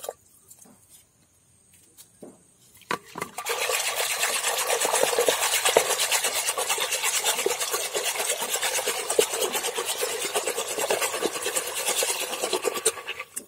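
A wooden churning stick is spun rapidly back and forth in a clay pot of curd thinned with water, making a fast, continuous swishing and rubbing. It starts after a few faint knocks about three seconds in and cuts off just before the end. This is hand-churning curd into buttermilk to bring up the butter.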